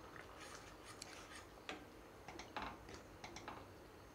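Faint, irregular clicks and light ticks from a pan of simmering milk payasam, with a steel ladle brought in to stir it near the end.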